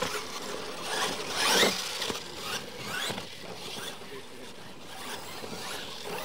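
Electric motors of two Losi LMT radio-controlled monster trucks racing, whining up and down in pitch in repeated high sweeps as they accelerate and let off.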